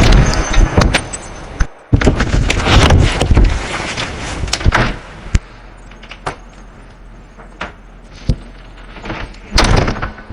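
Homemade imitation of an old swing-door elevator's door sounds: a loud stretch of clattering with many sharp clacks and knocks, then a few single clicks spaced a second or so apart, and another loud rattling burst near the end.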